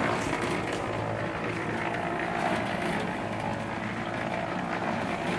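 A steady engine hum with a noisy wash over it, unchanging throughout.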